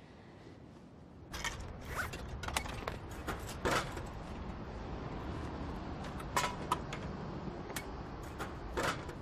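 Drinks vending machine being worked: a string of sharp clicks and clatters, starting about a second in, as a warm drink is bought. Under them is a steady low background rush.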